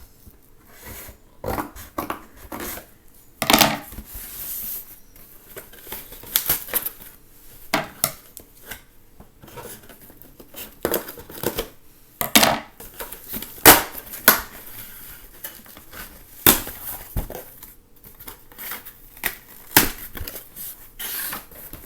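Shipping package being opened by hand: packaging tearing and crinkling, with irregular rips and sharp cracks.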